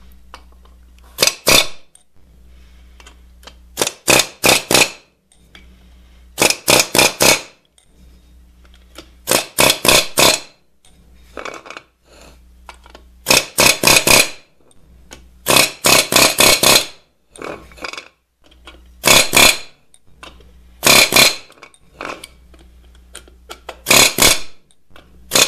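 Pneumatic air hammer with a snub-nose bit driving wheel studs back down into a Ford F-150 front brake rotor and hub assembly. About a dozen short bursts of rapid metallic hammering, each under a second, with pauses of one to three seconds between them as the tool is moved from stud to stud.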